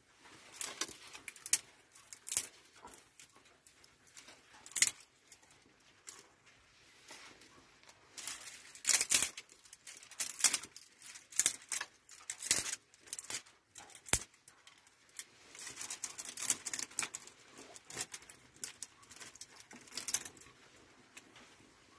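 Dry twigs and kindling being snapped, rustled and piled onto a small starting wood fire: irregular sharp snaps and crackles, with several louder cracks scattered through.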